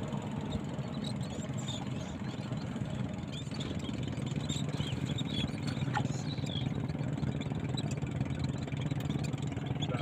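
Small fishing boat's engine running slowly at low throttle, a steady low hum that grows a little louder about halfway through. Faint, short high chirps of seabirds are scattered throughout.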